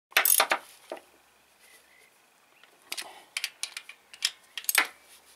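Metal hand tools and parts clicking and clinking in irregular sharp knocks while the timing belt and tensioner pulley are being worked on: a quick cluster at the start, then another run of clinks about three to five seconds in.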